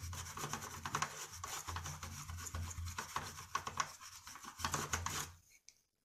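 Paintbrush bristles scrubbing a small circuit board wet with CTC cleaning solvent: quick, scratchy rubbing strokes that stop about five seconds in.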